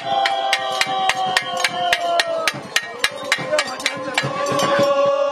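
A group of voices chanting in long, held notes over a quick, even clicking or knocking, about three to four strokes a second, which grows sparser in the second half.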